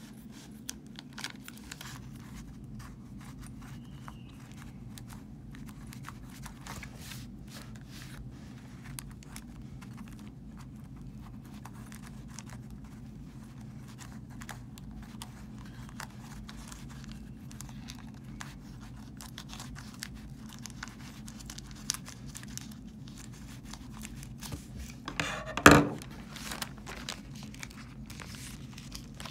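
Scissors cutting through a thin black plastic polybag, with many small crinkles and crackles of the plastic over a low steady hum. A much louder crackle of the bag comes about three-quarters of the way through, as it is handled.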